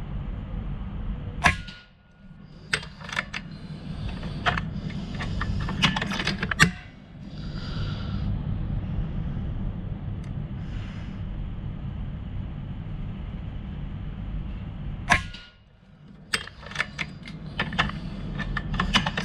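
Two shots from an air rifle about 13 seconds apart, each a sharp crack, followed by a run of clicks as the rifle is worked. A steady low hum runs underneath.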